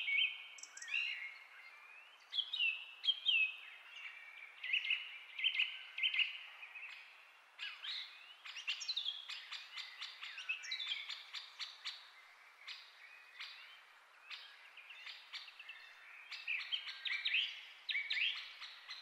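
Birds chirping and singing: a busy, continuous run of short chirps, trills and quick rising and falling whistles.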